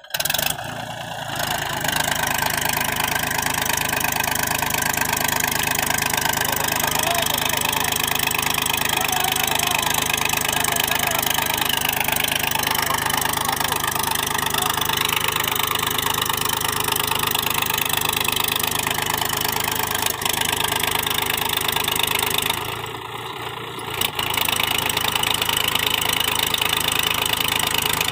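Mahindra B275 DI tractor's three-cylinder diesel engine running steadily and loudly under load as it tries to pull a loaded sand trolley through soft sand. The sound drops briefly about 23 seconds in, then comes back.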